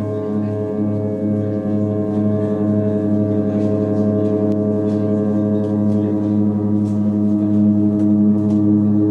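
Ambient drone music: layered low sustained tones with a pulsing beat in the lowest tone at first, slowly swelling louder.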